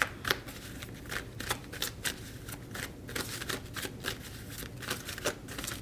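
Tarot cards being shuffled by hand: an irregular run of short, sharp card snaps and flicks, several a second.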